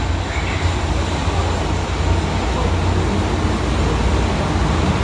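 Hydraulic passenger elevator travelling: a steady, loud low rumble with a faint high whine over it.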